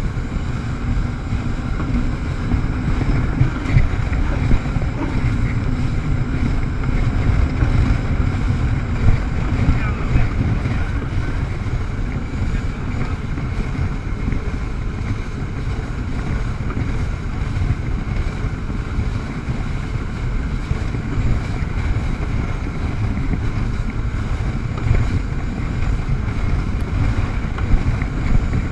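Jet ski engine running steadily at speed, with heavy wind buffeting on the microphone and rushing water.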